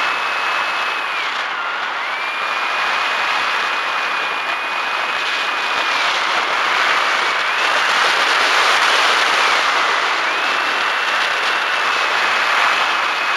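Electric motor and pusher propeller of a Bixler foam RC plane whining steadily, heard through the onboard camera with wind rushing over it. The whine's pitch drops and climbs back about three times as the throttle is eased off and opened up again.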